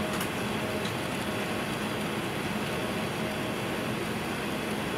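Steady cabin noise inside an Airbus A380 on the ground: an even rush of ventilation air with a faint low hum.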